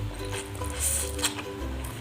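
Background music with a steady melody and bass, over wet eating sounds close to the microphone: several short squelches of chewing spicy chicken noodles.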